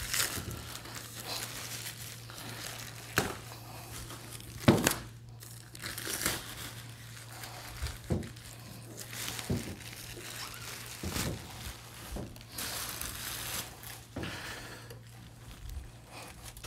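Plastic packaging wrap crinkling and rustling as it is pulled off and bunched up by hand, irregularly, with a few sharper, louder snaps of the film.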